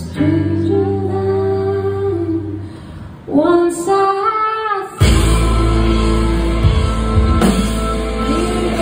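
Live indie rock band: a female lead voice sings a long melodic line over hollow-body electric guitar. About five seconds in, the whole band with drums comes in much louder.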